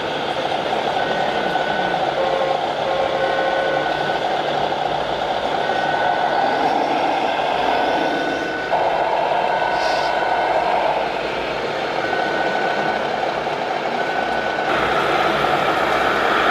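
Radio-controlled model trucks' electronic sound modules playing a steady engine drone, with a short electronic warning beep repeating about once a second. A louder held tone comes in near the middle for a few seconds.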